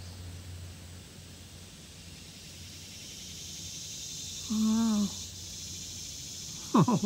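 Quiet outdoor background with a steady high-pitched insect drone that grows a little louder partway through. A person gives a short hum about four and a half seconds in, and a brief sound falling in pitch comes just before the end.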